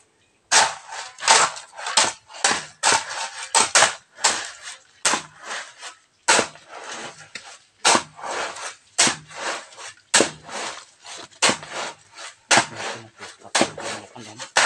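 A steady run of sharp knocking strikes, about two a second, each ringing briefly.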